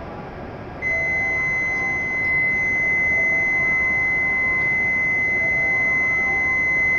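Platform departure signal at a shinkansen station: one steady, high electronic tone that switches on about a second in and holds for about six seconds, warning that the train is about to leave.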